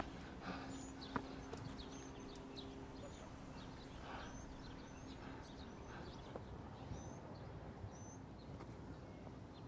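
Faint outdoor ambience with scattered short, high bird chirps and a few soft clicks.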